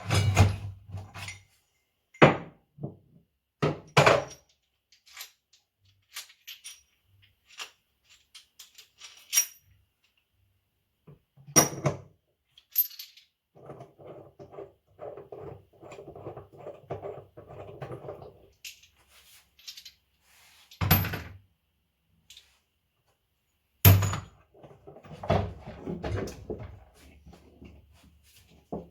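Metal clanks, clicks and knocks of a bearing puller being fitted and worked to pull a bearing out of a washing machine drum, with a stretch of rapid rattling about halfway through and single sharp knocks scattered before and after it.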